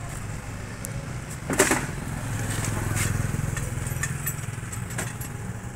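Metal clinks and knocks of hand tools and parts at a motorcycle's front sprocket and chain, with one sharp clank about a second and a half in and lighter ones around three and five seconds. A steady engine hum runs underneath.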